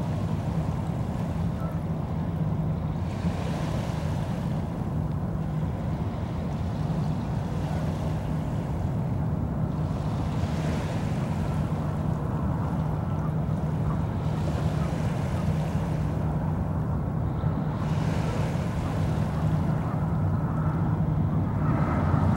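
Wind rumbling on the microphone over a steady low drone, with a soft hiss that swells and fades every few seconds; a faint higher tone joins near the end.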